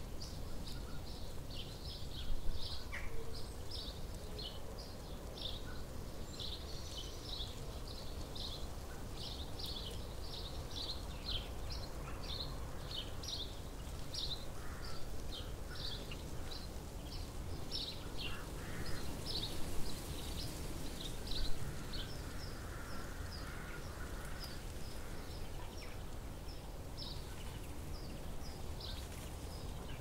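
Small birds chirping in a steady outdoor chorus of short, high chirps, several a second, over a low background rumble. A few brief louder sounds stand out, one near the start and two about two-thirds of the way through.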